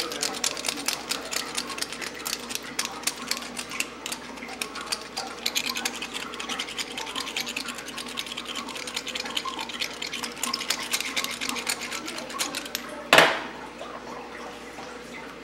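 Stainless-steel twist salt and pepper mills grinding over a bowl of mashed potatoes, a rapid steady run of gritty clicks. A single knock comes near the end.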